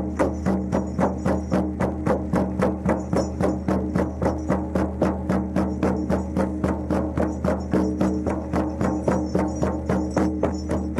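Many shaman frame drums (bubens) beaten together in a steady, even rhythm of about four beats a second, over a steady low drone.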